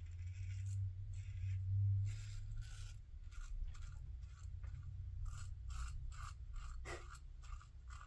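Double-edge safety razor, a Merkur 34C with an Astra blade, scraping through stubble in a run of short strokes, about two a second in the second half.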